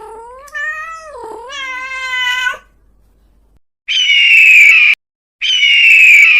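Animal calls: a drawn-out, wavering pitched call lasting about three seconds, then after a short pause two loud, shrill, slightly falling calls about half a second apart.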